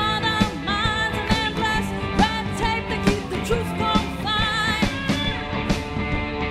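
A live rock band playing: a singing voice over electric guitars and a steady drum beat.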